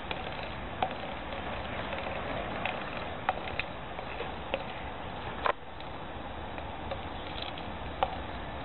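Steady outdoor background noise, with a few short clicks or taps at irregular moments.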